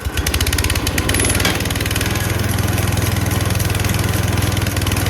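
Gas engine of a band sawmill catching right after starting. It runs rough for about a second, then settles into a steady run. It now keeps running because a loose low-oil sensor connection, which had been shutting off the spark, has been fixed.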